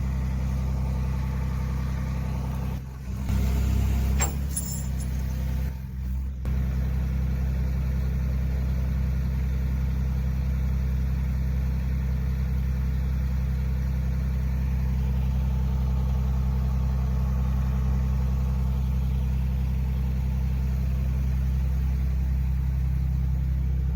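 A steady low engine drone, like an idling motor, running throughout with short breaks about three and six seconds in.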